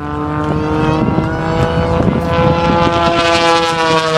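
Propeller aircraft's piston engine running loudly, its pitch dropping slowly near the end as it passes by.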